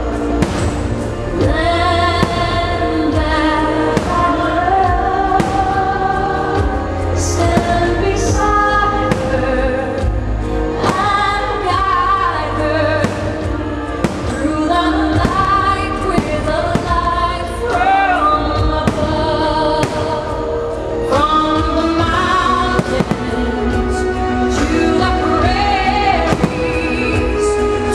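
Patriotic show music with singing, which sounds choral in places, with fireworks going off throughout as many short, sharp bangs.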